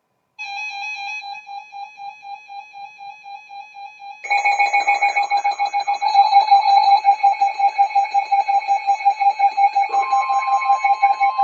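Emergency alert tones for a flash flood warning. An electronic beep pulses about four to five times a second and grows louder and fuller about four seconds in. About ten seconds in, a steady, slightly higher tone joins it.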